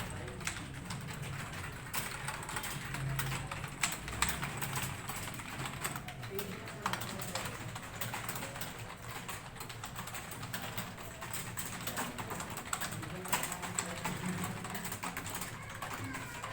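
Rapid typing on keyboards during a timed typing test: a dense, irregular clatter of keystrokes that keeps on without a break.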